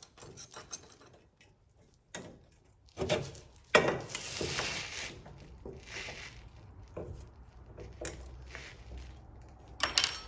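Irregular clunks and knocks of parts being handled and worked through an opening by hand, with a longer scraping rub about four to five seconds in.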